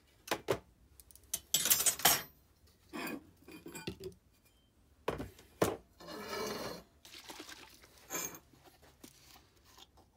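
Metal stock handled on a steel workbench: a steel rod and a brass plate clinking and knocking against the bench top, in a dozen sharp hits with a few longer sliding sounds, the loudest about two seconds in.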